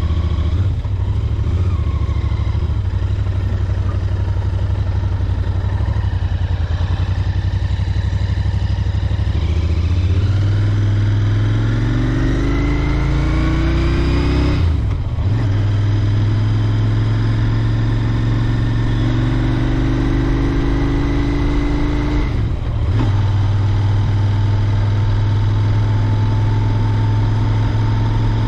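Royal Enfield Interceptor 650's parallel-twin engine pulling under way. It runs steady at first, then accelerates with rising pitch, and there are two brief breaks for upshifts, about halfway through and again near the end.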